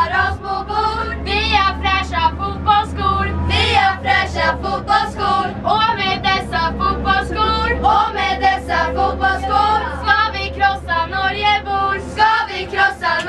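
A group of young teenage girls singing together, loud and continuous, with the low steady hum of the bus engine underneath.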